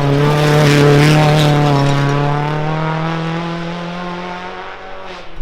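Rally car engine held at high revs as the car goes past, loudest about a second in, then fading away.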